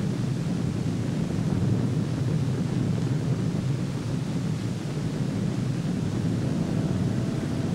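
Steady low rumble of wind and a distant aircraft engine, with a faint steady whine joining near the end.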